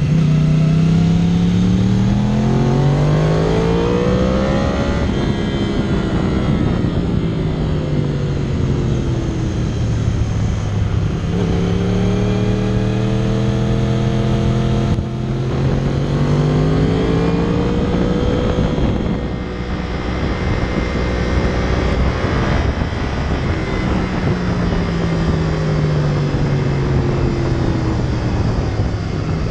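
2014 Yamaha YZF-R1's crossplane inline-four engine at racing speed, revving up through the first few seconds, dropping in pitch until about ten seconds in, then climbing again with a brief cut near the middle, holding level, and falling once more near the end. A steady rush of wind runs under it.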